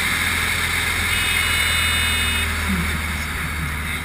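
Grob light aircraft's piston engine and propeller running steadily, heard from inside the cockpit under aerobatic manoeuvring. A high steady tone sounds briefly, from about a second in for about a second and a half.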